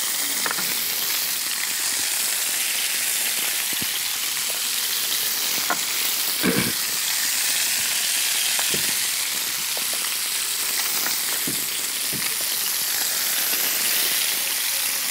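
Marinated chicken drumsticks sizzling in hot oil in a frying pan: a steady frying hiss, with a few light knocks, the loudest about six and a half seconds in.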